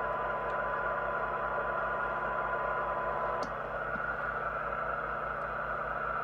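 Steady open-squelch receiver hiss from a Jesan PRO8000 FM CB radio's speaker with no signal coming in, while its auto-squelch preset is being adjusted. A thin steady tone under the hiss stops about halfway.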